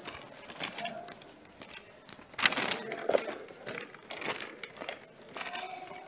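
Walking and handling noise: footsteps with clothing brushing against the phone's microphone, and one louder rustle about two and a half seconds in.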